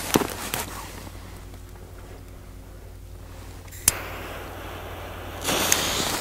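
Lighter clicked at a Pyroco Mega Petarda firecracker's fuse about four seconds in, then the fuse hissing as it catches and burns, getting louder near the end as it throws sparks.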